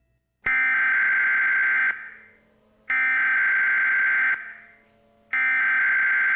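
Emergency Alert System header tones from a television: three loud electronic data bursts, each about a second and a half long and about a second apart, each starting and stopping abruptly. They mark the start of an Emergency Action Notification broadcast.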